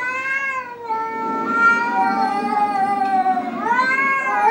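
Domestic cats caterwauling at each other face to face in a standoff. Long, drawn-out, wavering yowls follow one another, with a new cry rising near the end.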